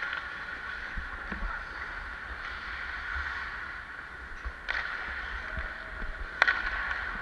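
Hockey skate blades scraping and carving on the ice as players skate, a steady hiss. Sharp knocks about 4.5 and 6.5 seconds in, the second the loudest, typical of sticks and puck on the ice and boards.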